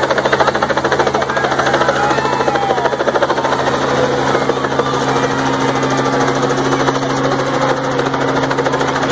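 Light two-bladed helicopter flying overhead: a steady rapid beat of the rotor blades over a low engine drone.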